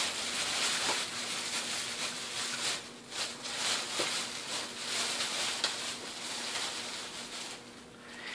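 Plastic shopping bag rustling and crinkling as clothing on a hanger is pulled out of it; the rustling dies down near the end.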